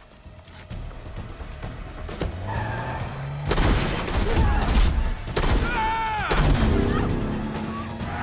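A car engine revs up and the car speeds away, its tyres squealing about six seconds in, over tense background film music.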